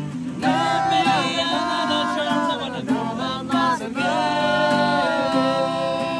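A group of young men singing a song together in loose unison, accompanied by a strummed acoustic guitar.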